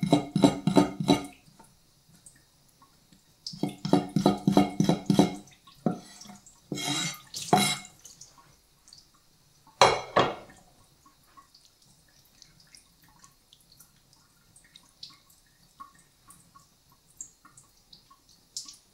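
Water splashing and dripping at a kitchen sink in loud bursts over the first several seconds as a fish's stomach is rinsed out. A single sharp knock comes about ten seconds in, then faint drips and small clicks.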